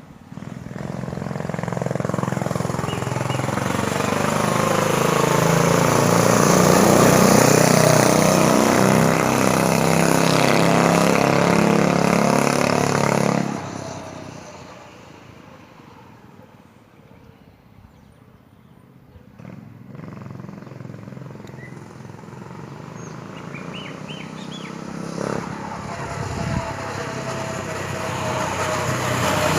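Diesel engine of a BMX-style cub minibike running as the bike rides by, growing louder for several seconds and then dropping away quickly about halfway through. After a quieter stretch it builds again toward the end as the bike comes back.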